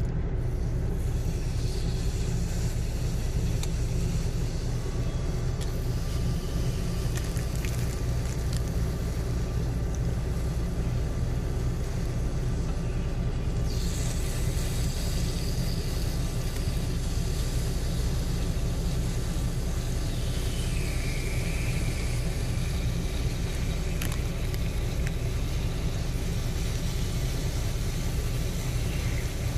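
Steady low rumble of a semi truck's idling diesel engine, heard inside the cab. About halfway through, a faint hiss of chicken sizzling on an electric contact grill joins it.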